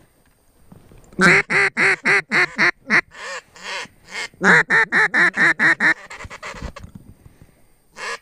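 A hunter's duck call blown in two quick runs of short, loud quacks, about a second in and again about four and a half seconds in, with a couple of softer notes between, calling to passing ducks.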